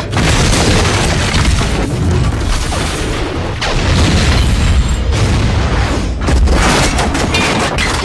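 Film sound effects of a train wreck: a dense run of explosions and crashing wreckage with a heavy low rumble, broken by a few sudden short gaps.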